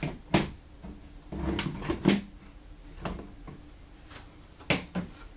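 Plastic Lego bricks and built sections knocking and clicking together as the sections are pressed onto each other, with a few sharp clicks: one just after the start, two around two seconds in, and two near the end, with handling rustle between.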